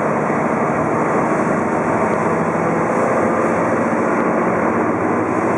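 Steady cabin noise of a Ford Fusion at speed on a wet track: engine drone under a constant wash of tyre and road noise.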